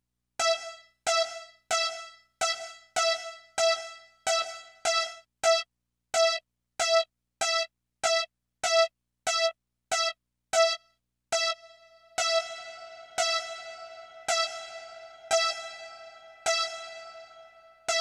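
A single synthesized keyboard note from a Roland SC-55 sound module, repeated at the same pitch: short, clipped notes about one and a half a second, then from about twelve seconds in slower notes that ring on and run into each other. The change fits the reverb setting on the MIDI controller being turned up.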